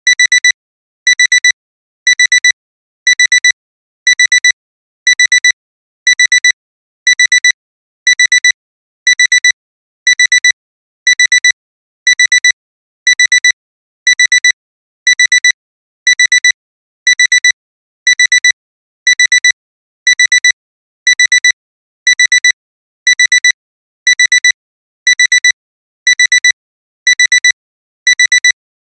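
Digital alarm-clock beeping: a high electronic tone in bursts of a few rapid beeps, about one burst a second, repeating without a break. It is the timer's end-of-countdown alarm.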